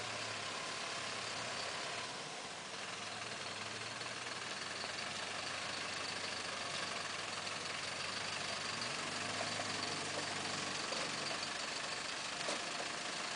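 Diesel engine of a Mercedes-Benz car-transporter truck running at low revs as the truck drives slowly past, a steady low drone under an even hiss.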